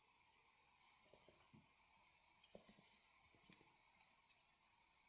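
Near silence with a few faint, scattered clicks of small plastic building-block figure parts being handled and fitted, such as a helmet pressed onto a minifigure-style head.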